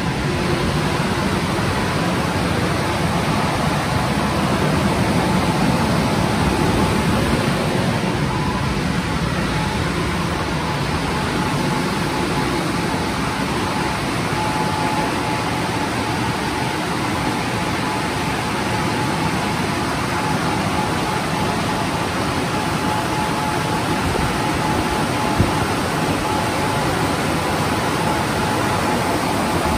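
Istobal M'NEX 22 rollover car wash's dryer blowers running, a steady rush of air with a faint high whine.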